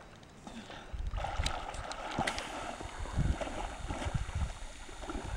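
A person wading through shallow pond water: irregular splashing and sloshing steps that start about a second in.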